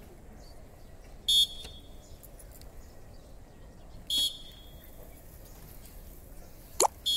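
Short high-pitched signal beeps, one about every three seconds, pacing a group through the steps of the sun salutation. Just before the third beep there is one quick sweeping chirp.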